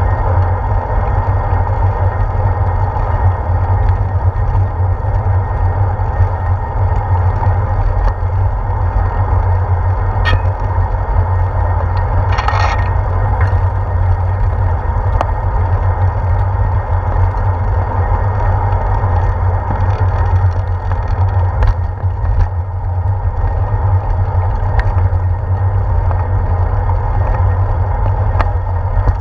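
Wind and road rumble from a moving bicycle, picked up by a camera mounted on its handlebars: a steady low rumble with tyre hiss over pavement, a few small clicks and a short rattle about twelve seconds in.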